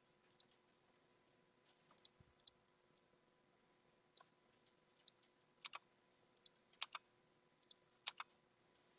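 Computer mouse buttons clicking: scattered sharp single clicks and quick double clicks over near-silent room tone.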